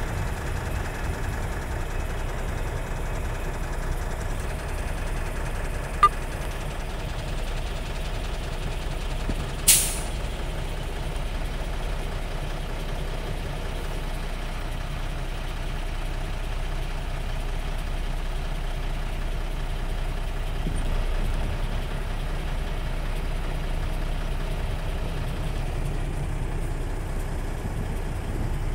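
Heavy vehicle's engine idling with a steady low rumble. There is a single click about six seconds in and a short, sharp air-brake hiss about ten seconds in.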